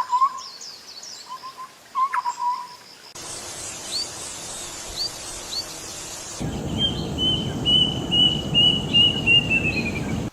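Bird calls from three different clips spliced back to back: first short repeated calls, each with a quick upward flick, then a few sparse chirps over a steady hiss, then a quick run of repeated notes that dips in pitch at the end over a rushing noise.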